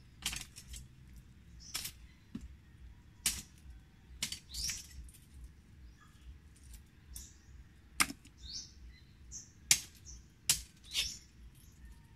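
Hard shellfish shells knocking and clacking as they are handled, about ten sharp knocks at uneven intervals, the loudest near the end. Small birds chirp between the knocks.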